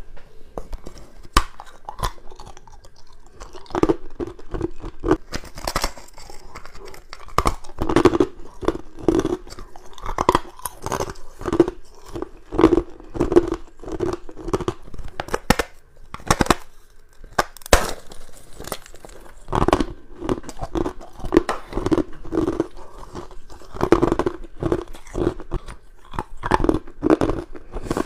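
Frost-coated ice cubes being bitten and chewed: a run of crisp crunches with a chewing rhythm of just under two a second, broken by a short pause about two-thirds of the way through.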